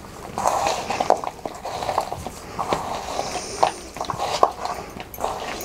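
Hands mixing raw goat-head pieces and bones with turmeric and salt in a metal plate: irregular wet squishing and rustling, with small clicks as bone pieces knock against the metal.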